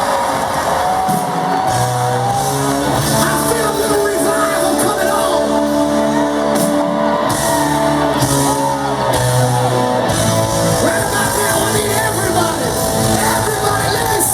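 Live rock band playing with a singer's voice over it.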